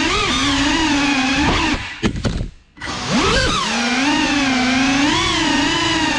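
Brushless motors and propellers of a GEPRC CineLog35 cinewhoop FPV drone whining at a steady pitch that wavers with the throttle. About two seconds in the whine drops away almost to silence for about a second, then returns with a quick rising whine as the throttle comes back up.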